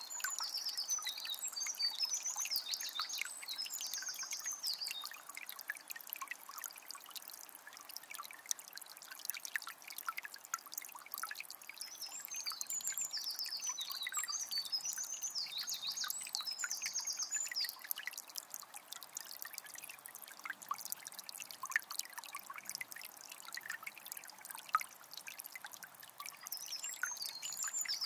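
A calm forest river trickling and babbling over stones, with a songbird singing a high, rapidly trilling phrase of several seconds twice, and starting again near the end.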